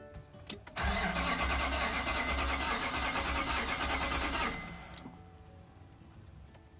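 Nissan Titan pickup's starter cranking the engine in a fast, even rhythm for about three and a half seconds, then stopping without the engine catching: a no-start, which the owner treats as something to check before replacing the fuel pump.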